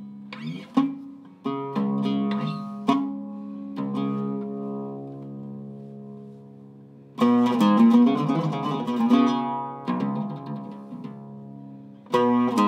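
Zeryab Iraqi-style oud, cedar top and mahogany back, played with a plectrum. Single plucked notes are left to ring, then a fast run of picked notes comes about seven seconds in and dies away before the playing picks up again near the end.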